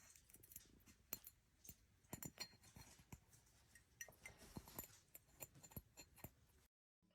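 Very faint, scattered small clicks and taps, several in quick runs, stopping a little before the end.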